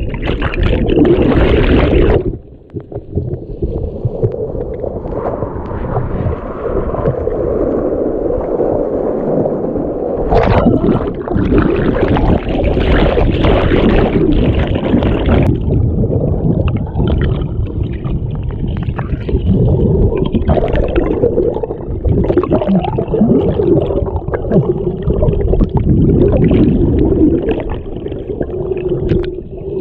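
Loud churning water at the start, then the muffled underwater rush of a fast mountain river current with gurgling and bubbling. A louder, brighter stretch of churning bubbles comes about a third of the way in.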